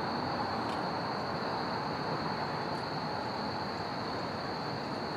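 Steady outdoor background noise at a constant level, with a thin, high-pitched tone running through it and a faint click about two-thirds of a second in.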